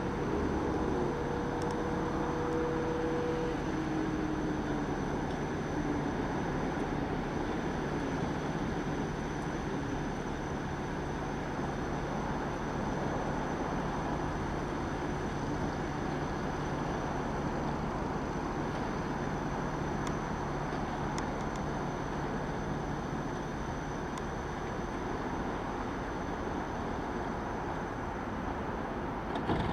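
Steady vehicle engine hum with road-noise-like background at an even level; a pair of higher tones fades out in the first few seconds.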